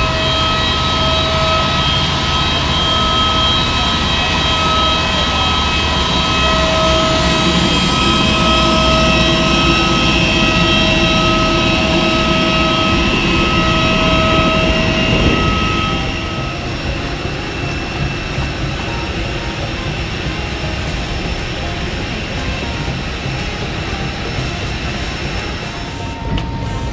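Jet aircraft turbine whine: several steady high whines over a rushing noise, with another whine rising about seven seconds in and then holding. The whines stop about sixteen seconds in, leaving a quieter rush.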